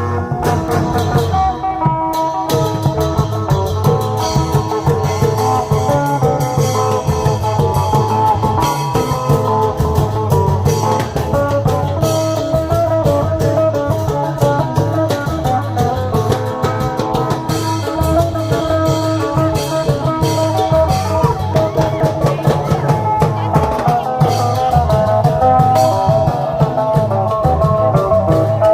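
Isan klong yao long-drum troupe playing procession music: continuous drumming under a melodic lead line, loud throughout.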